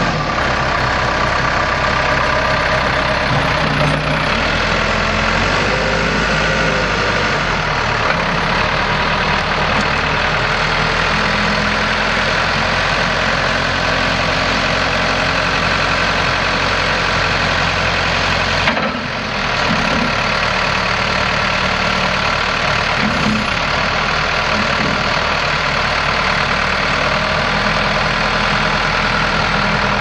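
Case 4T-390 four-cylinder turbo diesel engine of a Case 580 Super M backhoe running steadily, its speed shifting a few times, with a brief dip in level about two-thirds of the way through.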